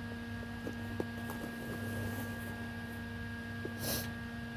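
Room tone with a steady electrical hum, a few faint clicks about a second in, and a short hiss near the end.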